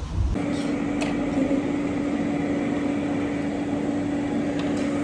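Low car-interior rumble that cuts off abruptly just after the start, then a steady electric hum with one constant low tone over a hiss, and a few faint clicks.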